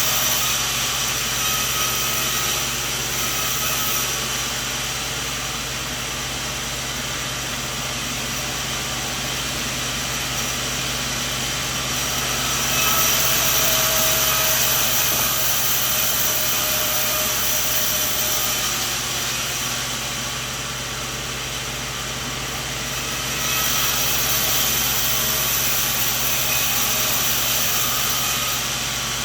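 Sawmill machine running steadily with a constant low hum, growing louder and hissier in three long stretches, near the start, around the middle and near the end.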